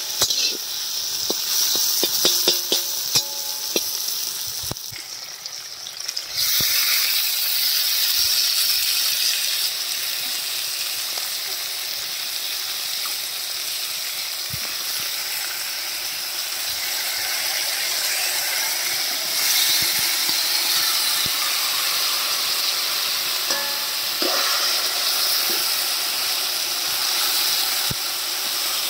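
Metal spatula scraping and clicking against a large wok as onions, tomatoes and green chillies fry. About six seconds in, a loud steady sizzle starts suddenly, as the raw country chicken pieces go into the hot pan, and keeps on under the stirring.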